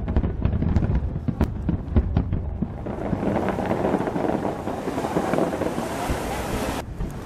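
Aerial fireworks display: a run of sharp bangs over a rolling rumble, then from about three seconds in a dense crackling hiss that cuts off suddenly near the end.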